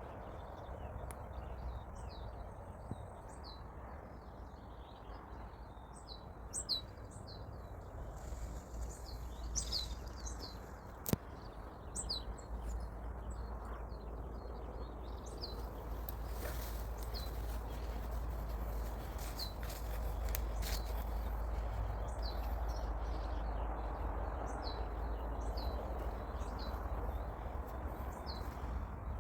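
Small birds chirping and singing with many short, high calls repeating throughout, over a steady low rumble. A single sharp click comes about eleven seconds in.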